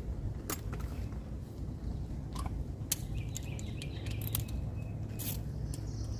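Scattered sharp clicks and light taps, with a few faint bird chirps, over a steady low hum.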